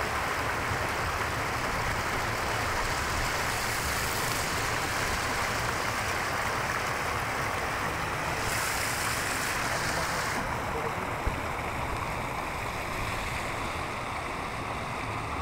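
Stream water rushing and splashing over rocks in shallow rapids, a steady rushing sound. About ten seconds in, the hiss turns softer and duller.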